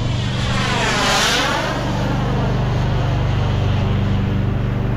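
Model turbojet (Kingtech K102G4+) in a JMB MB-339 RC jet making a fast pass: a rushing jet whoosh with a sweeping, phasing sound that swells to its loudest about a second in and then fades. A steady low hum runs underneath.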